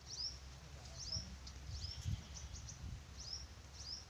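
A small bird chirping repeatedly outdoors: short, high notes that drop quickly in pitch, five or six of them spaced irregularly, over a faint low rumble.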